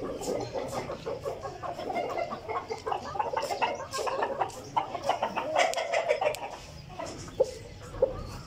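Chickens clucking: a quick, irregular run of short calls, then two sharper short sounds near the end.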